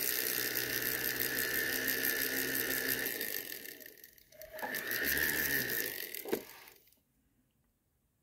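Foredom rotary handpiece running a felt polishing bit with diamond paste against an opal, a steady whine. It dies away about four seconds in, speeds up again, and shuts off about seven seconds in.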